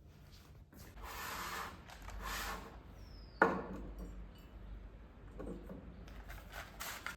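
Household handling noises: rustling twice, then a sharp knock with a short ring about three and a half seconds in, followed by a few lighter clicks.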